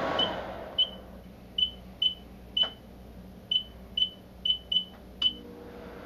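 Microwave oven keypad beeping as buttons are pressed: about ten short high beeps, each with a key click, at irregular intervals. A steady rushing noise dies away at the start, and a low hum comes on near the end.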